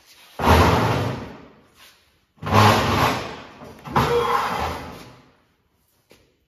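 Welded square-tube steel headache-rack frame being turned over and shifted on a steel welding table: three loud metal-on-metal clanks, each starting suddenly and dying away over a second or so, about a second and a half apart.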